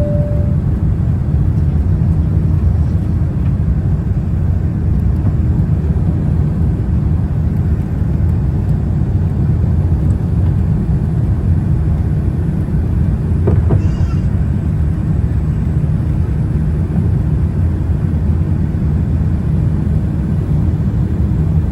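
Boeing 787-9 cabin noise in flight: a steady low rumble of engines and airflow heard from inside the passenger cabin. The second note of a two-note cabin chime sounds at the very start.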